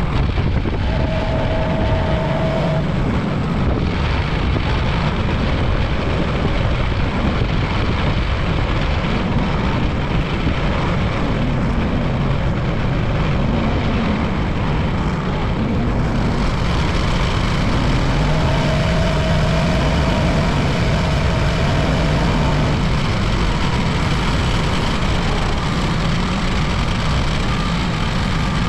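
Farm tractor engine running steadily and loud, with a faint whine that comes in twice, briefly near the start and for a few seconds past the middle.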